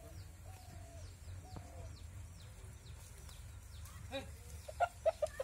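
An aseel chicken clucks, about four short clucks in quick succession near the end. Behind it a small bird repeats a high, falling chirp about twice a second over a low steady hum.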